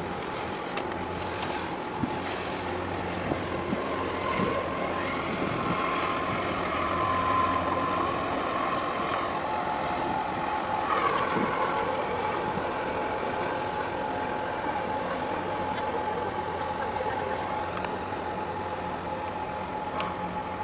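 Steady machinery hum with a constant whine from a large container ship passing close by as it enters harbour, swelling slightly about halfway through.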